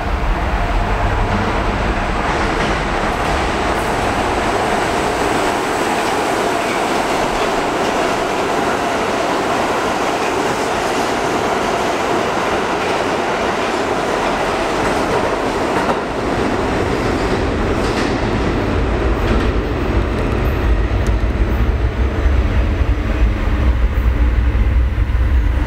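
Ride noise inside an R62A New York City subway car running express at speed: steady wheel and track noise with clickety-clack over the rail joints. The rumble grows louder and deeper near the end.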